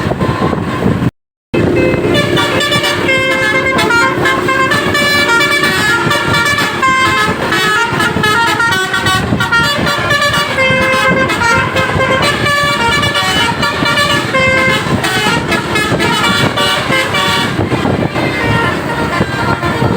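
Bus-mounted Basuri telolet horns playing a melody of quickly changing multi-tone horn notes over running bus engines. The sound cuts out briefly about a second in.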